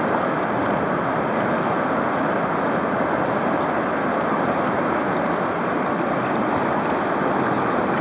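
River rapids rushing: a steady, even noise of white water.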